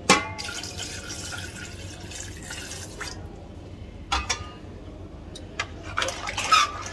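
Broth poured into a large aluminium pot of mutton curry, splashing steadily for about three seconds, followed by a few knocks and clinks as the pot is stirred.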